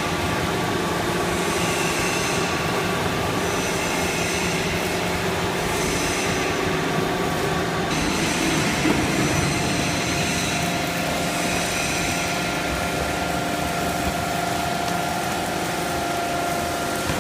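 Paper baling machine running: a steady mechanical hum and hiss, with a faint high swish repeating every couple of seconds.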